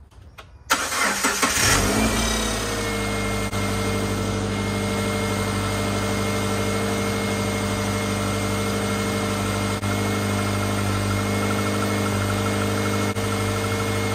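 2007 Subaru Impreza's flat-four engine cranking and catching within about a second, its revs dropping as it settles into a steady idle. This is a restart after a no-start, with a replaced ignition coil on the engine.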